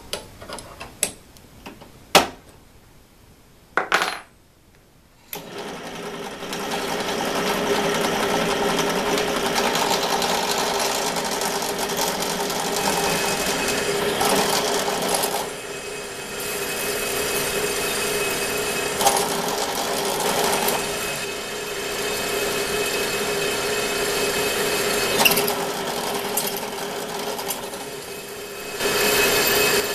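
Benchtop drill press: a few sharp clicks in the first seconds, then the motor starts about five seconds in and runs steadily as a 5 mm bit drills through a metal flat bar. The sound dips briefly twice as the bit is eased off between cuts.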